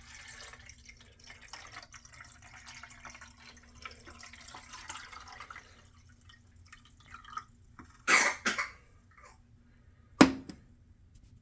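Water poured into the Ninja coffee maker's water reservoir, a faint splashing trickle for about six seconds, followed by two loud knocks about two seconds apart near the end.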